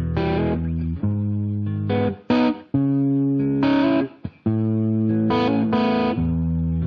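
Guitar music: a run of chords, each struck and held for about a second, with short breaks between them.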